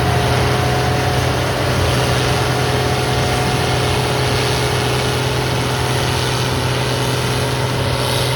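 Large farm-machinery engine running at a steady speed: a constant low drone with a faint steady whine above it.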